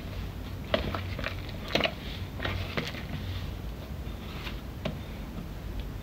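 Hands kneading soft dough in a plastic bowl: irregular squishing and slapping, with the bowl knocking against the counter a few times.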